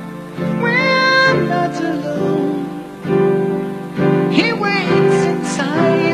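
Live band music with a man's high voice singing long, gliding notes over keyboards and the band.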